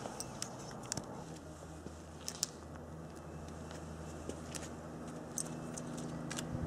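Faint scattered clicks of an H&R 949 .22 revolver being handled, over a low steady hum that comes in about a second in.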